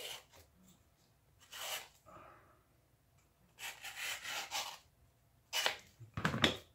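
Leather being drawn through a wooden hand strap cutter, its blade slicing a half-inch strap: a series of short rasping rubs, the longest about a second long midway, with two quicker ones near the end.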